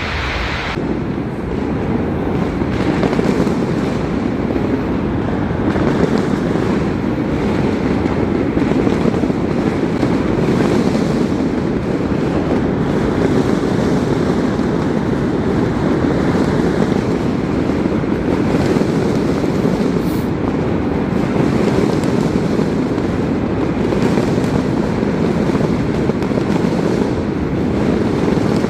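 Fireworks display going off steadily: many booms and crackles running together into a loud continuous rumble.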